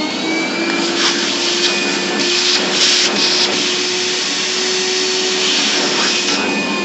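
Vacuum cleaner running steadily, sucking drill shavings out of a hole drilled through a safe's lock case.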